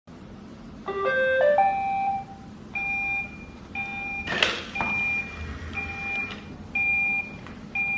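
A short electronic melody of stepped tones, then the same two-note electronic beep repeating about once a second, with a single sharp clack near the middle.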